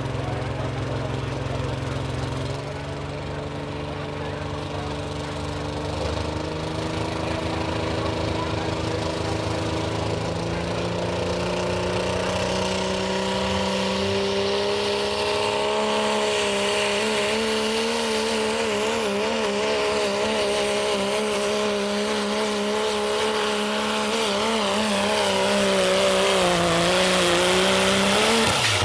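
Dodge Ram pickup's Cummins diesel engine pulling under full load against a weight sled. The engine note climbs steadily over the first fifteen seconds, then holds high with a wavering up-and-down warble and sags a little near the end.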